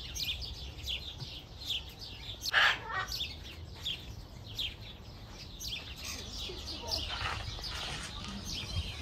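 Many small birds chirping in quick, overlapping short high notes, with one louder, harsher call about two and a half seconds in.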